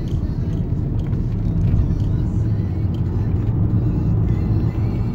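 Car engine and road rumble heard from inside the cabin as the car accelerates at low speed: a steady, low rumble.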